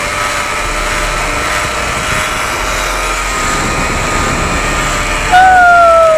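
Zip-line trolley pulleys running along a steel cable, a steady whine over wind noise on the microphone. Near the end a louder whine starts and falls in pitch.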